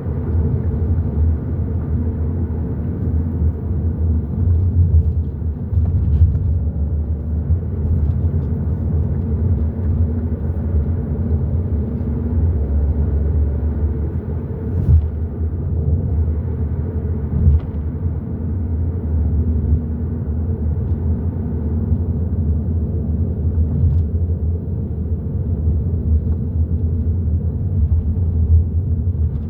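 Hyundai i30 N Line driving at a steady pace: a constant low rumble of engine and tyres on the road, with a few faint ticks.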